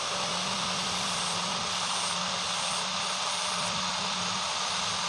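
Electric grinder with an abrasive disc grinding the bevel of a new hand-plane blade: a steady grinding rush over a low motor hum.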